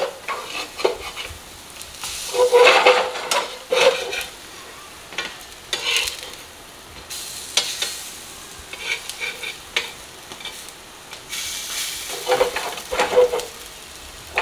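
Pieces of ground chana dal paste frying in mustard oil in a pan, with a steady sizzle. A spatula scrapes and taps against the pan as the pieces are turned, loudest a few seconds in and again near the end.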